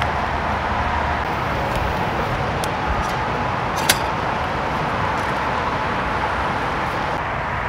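Steady rushing water noise of rain and river, with one sharp click about four seconds in.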